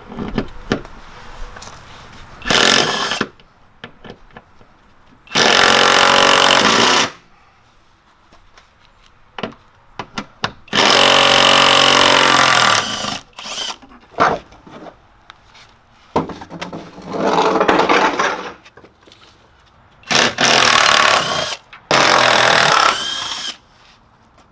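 Handheld power tool spinning 13 mm bolts off a Jeep's side steps. It runs in about six bursts of one to two seconds, with small clinks and rattles of hardware between them.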